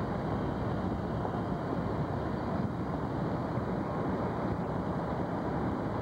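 Steady wind rush and road rumble from a moving car pacing the train, without changes or distinct knocks.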